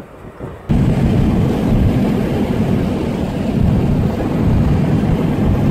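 Car driving, heard from inside the cabin: a loud, steady low rumble of engine and road noise that starts abruptly under a second in.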